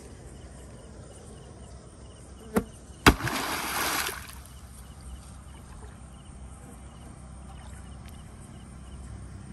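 A sword blade slapped hard down into shallow water about three seconds in, as a strike at a fish: a sharp smack followed by about a second of splashing, with a smaller knock just before it.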